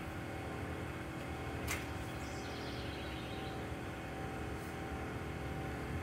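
Steady outdoor background noise with a low rumble. A single sharp click comes a little under two seconds in, followed by a faint, high, descending bird trill.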